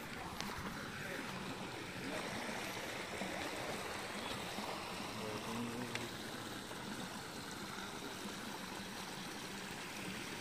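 Water spilling over a low concrete weir in an irrigation canal and splashing into the pool below: a steady rushing of falling water.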